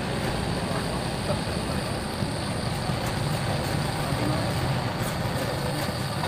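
Hand-held gas torch burning with a steady, unbroken noise as it heats thick body filler and paint on a motorcycle fuel tank to soften them for stripping. A few faint scrapes of a metal scraper on the softened filler.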